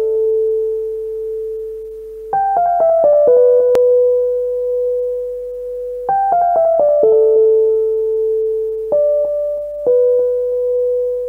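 Instrumental intro music: a keyboard melody of quick falling runs of notes, each settling on a long held tone, repeating about every four seconds. There is one sharp click about four seconds in.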